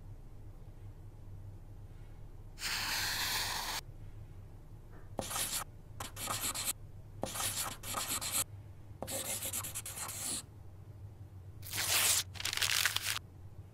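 Pen or marker scratching across sketchbook paper in a series of strokes: a longer stroke, then several shorter ones, some starting with a light tap of the tip on the page.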